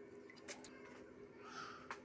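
A few faint clicks as a large kitchen knife is picked up off a wet stone slab, over a faint steady hum.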